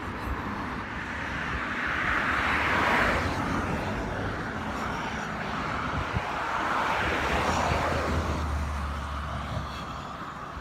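Two cars passing one after the other on the road, each a swish of tyres and engine that swells and fades, the second about five seconds after the first.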